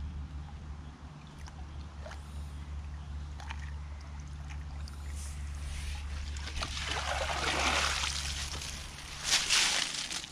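Water running steadily through a concrete irrigation ditch while a long-handled net is worked in it to scoop out fallen leaves. A sloshing swell builds past the middle as the net drags through the water. Near the end a brief louder burst comes as the full, dripping net is lifted out and emptied.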